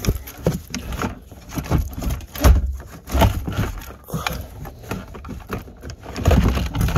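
Fuel pump and sender assembly of an Audi S8 D2 fuel tank knocking and scraping in the tank opening as it is twisted and wiggled free, with irregular knocks and louder thumps about two and a half seconds in and again near the end.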